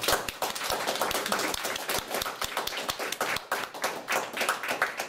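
Audience clapping: a small group applauding, many uneven claps overlapping.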